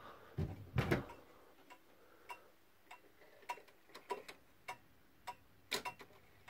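Eight-day German pendulum wall clock ticking steadily, one beat about every 0.6 s. Louder knocks about half a second in and again near the end come from the case door being opened and the minute hand being pushed round.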